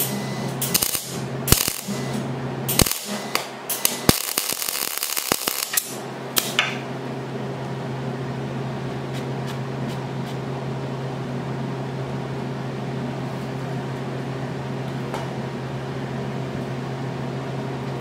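MIG welding arc crackling in several short bursts of tack welding, the longest about four seconds in, stopping after about six and a half seconds. A steady low electrical hum runs underneath.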